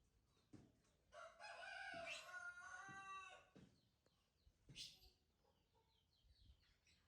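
A rooster crowing once: one long, pitched, drawn-out crow of about two and a half seconds, starting about a second in. Scattered light clicks and faint small-bird chirps come before and after it.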